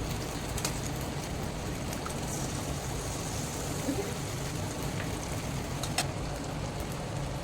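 Food frying in a little hot oil in a pan, a steady sizzle, with a couple of sharp clicks of a utensil against the pan, one near the start and one about six seconds in.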